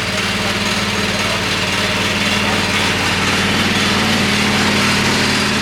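An engine running steadily at a constant speed, with a loud, even hum.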